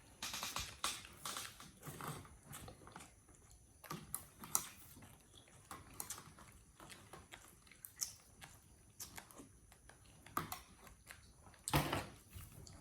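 A monkey chewing and crunching food, with irregular sharp crunches and bites; one louder crunch comes near the end.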